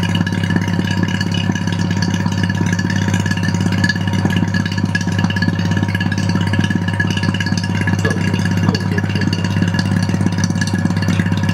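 Vacuum pump running steadily with a low hum and a continuous rattle, drawing down a glass bell jar for a bubble leak test of electronic components.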